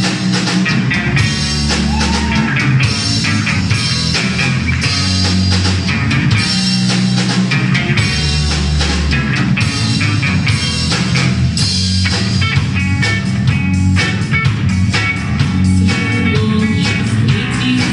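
Instrumental rock music with guitar, bass and drum kit playing with a steady beat.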